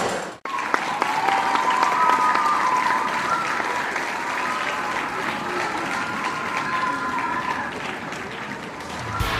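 Audience applauding in a hall, with voices calling out over the clapping. The sound cuts out abruptly for a moment just under half a second in.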